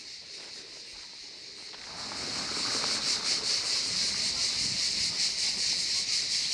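Chorus of cicadas, a loud steady high buzz that swells about two seconds in and then pulses rapidly.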